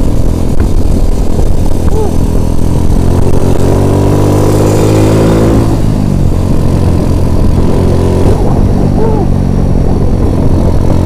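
Small motor scooter's engine running steadily under way, its pitch shifting a little midway, with wind noise on the microphone.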